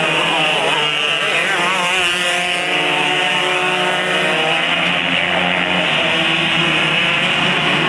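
A pack of winged outlaw karts with Kawasaki KX125 two-stroke engines racing. Several engines run at once, their pitches wavering up and down as they rev through the turns and blending into a steady high whine.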